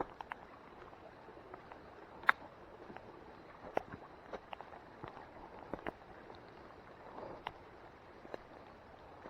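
A hiker's footsteps on a wet woodland trail: scattered light snaps and clicks over a faint steady hiss.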